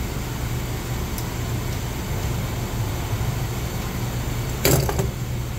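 Steady low mechanical hum of equipment running in the background, with one sharp clank of a hand tool about four and a half seconds in.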